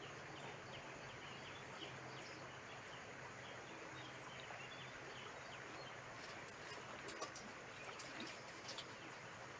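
Outdoor rural ambience: a steady even hiss with scattered faint bird chirps, a few slightly louder chirps near the end.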